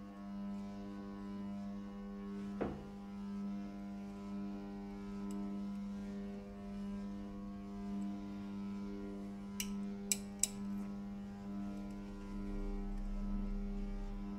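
Steady low hum under faint background music, with a few light clicks from a hand tap being turned in a threaded hole with a tap wrench: one click about three seconds in and three close together about two-thirds of the way through.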